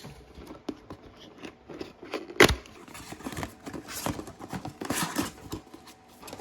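A figure's box and plastic packaging being opened and handled: irregular clicks, scraping and rustling, with one sharp loud snap about two and a half seconds in.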